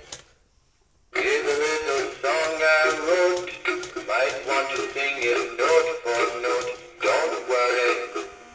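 Big Mouth Billy Bass singing fish toy playing its song, a male voice singing over music from its small speaker, starting about a second in after a short silence.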